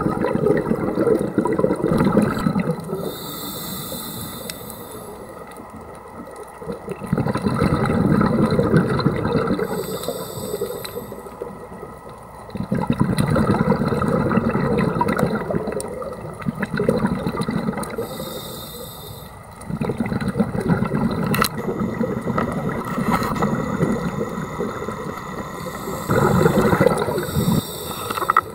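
Scuba diver breathing through a regulator, heard underwater: a short hissing inhale, then a longer rush of exhaled bubbles, repeating about every eight seconds, four breaths in all.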